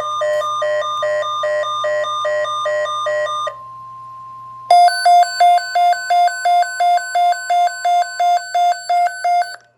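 Electronic emergency alert tones: a rapid beeping at about three beeps a second, then a quieter steady tone for about a second, then a louder beeping at a different pitch that stops just before the spoken alert message.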